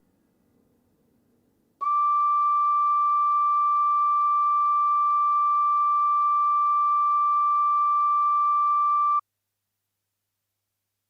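A single steady high tone, starting about two seconds in, held for about seven seconds, then cut off suddenly. It is a flute imitating a heart monitor's flatline beep, standing for death.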